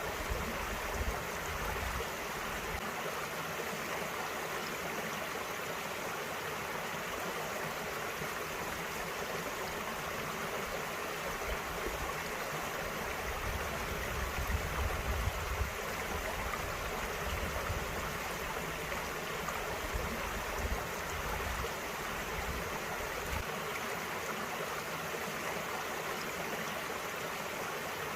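Small mountain stream flowing over rocks: a steady, even rush of running water.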